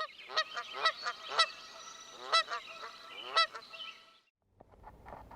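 Geese honking: a run of loud repeated honks over about four seconds, ending suddenly, followed by faint low background noise with a few small clicks.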